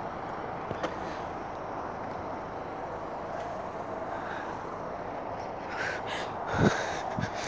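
Steady outdoor rumble and hiss of wind on a phone microphone, with a few short sounds about six seconds in and a dull thump just after, the loudest moment.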